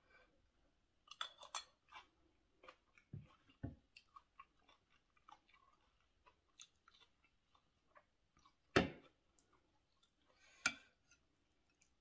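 Close-miked chewing and wet mouth sounds of someone eating a seafood koi salad of salmon, shrimp and squid with fresh herbs and vegetables. Soft scattered clicks run throughout, with a few sharper crunches or clicks, the loudest two near the end.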